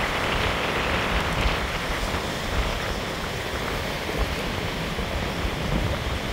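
Rough storm-driven surf washing and breaking around a concrete pier, a steady rushing of water, with wind gusting on the microphone as a low rumble.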